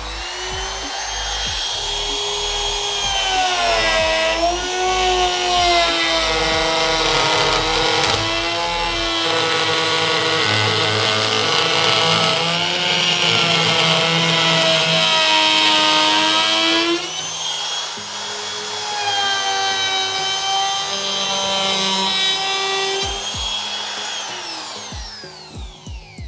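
CAZAR CZ-TVS036 trimmer/router motor running at its highest speed setting while its bit routes babool (kikar) hardwood, the whine dipping in pitch several times as the cut loads it and recovering in between. Near the end the motor winds down with a falling whine.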